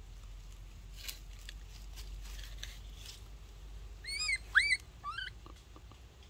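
Baby monkey giving three short high calls, each rising then falling in pitch, the second the loudest, after a couple of seconds of light rustling in dry leaves.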